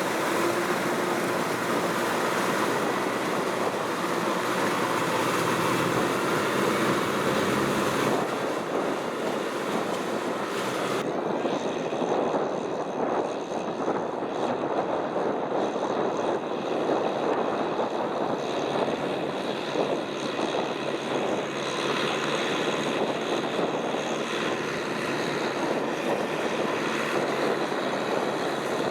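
Tractor diesel engine running steadily under load while plowing mud, a continuous drone. The sound changes abruptly about eight and again about eleven seconds in.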